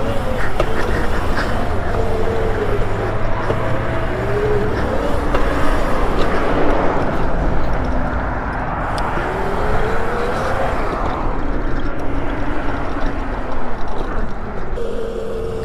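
Electric pit bike's hub-mounted MY1020 motor whining as it rides, the whine rising in pitch twice as the bike speeds up. Heavy wind rush on the microphone and tyre rumble on pavement run underneath.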